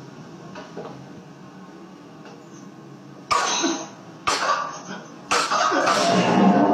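Three short, sharp kung-fu yells about a second apart, beginning about three seconds in, the last drawn out into a longer pitched cry in the manner of Bruce Lee's fight shouts.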